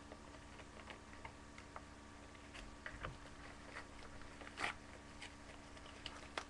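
Faint scattered clicks and crinkles of a kraft paper mailer envelope being cut with scissors and worked open by hand, with one louder paper crackle about two-thirds of the way through.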